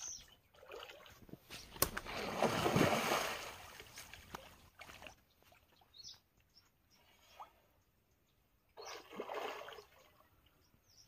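A large hooked fish, a rohu, thrashing and splashing at the water's surface as it is played on a rod. A longer burst of splashing comes about two seconds in and a shorter one near the end.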